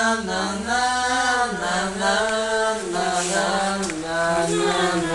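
A voice chanting long held notes that step slowly downward in pitch.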